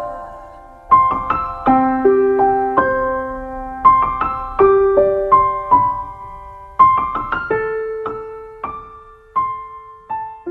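Background music: a solo piano playing a slow melody, each note struck and then dying away, with no singing.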